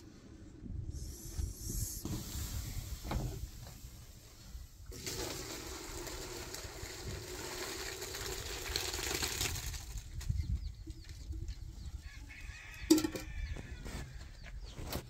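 A pot of cooked grain and its liquid poured into a plastic basin: a steady splashing pour lasting about five seconds in the middle. A sharp knock comes near the end.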